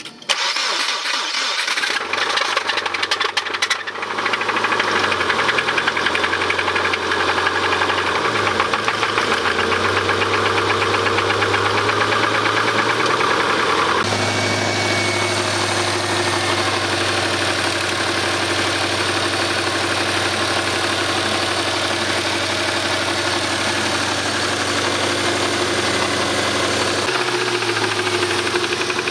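Subaru Impreza 2.5 RS flat-four engine starting, then running with a rapid knocking: rod knock, a damaged connecting-rod bearing after the engine was over-revved. The engine speed wavers for the first several seconds, then settles to a steady idle.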